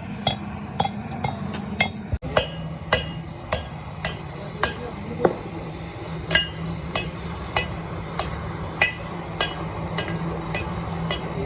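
Light hammer taps on metal, evenly paced at about two a second, over a steady machine hum, with an abrupt cut about two seconds in.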